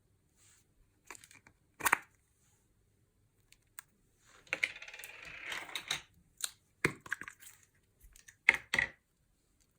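Close-up handling of slime-making supplies: scattered sharp clicks and taps of plastic, a crinkling, rattling stretch about four and a half seconds in, and a loud double clack near the end.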